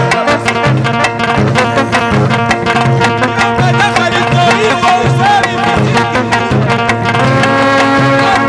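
Egyptian Sufi dhikr music: hand drums beating a steady rhythm under a melodic instrument line, with a new held note entering near the end.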